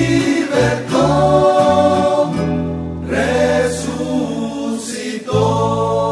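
Rondalla music: guitars and bass under a group of voices singing held chords, with no clear words. The chord changes about five seconds in.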